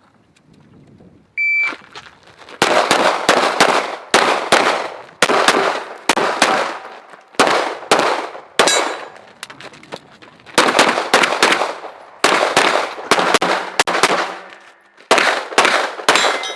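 A shot timer's start beep, then a 9mm Glock 17 pistol fired in a rapid string of quick double shots, pair after pair with short breaks between groups, until near the end.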